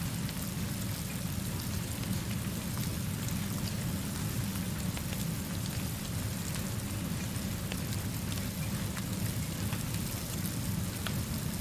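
Steady rainfall with a low, even rumble underneath and scattered small ticks over the top.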